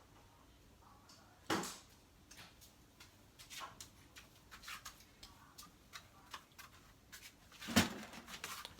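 Scattered clicks and small knocks of hard parts being handled and fitted together, with a louder knock about a second and a half in and another near the end.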